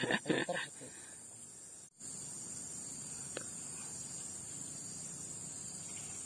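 Steady, high-pitched chorus of insects, shrilling without a break, with a brief gap about two seconds in.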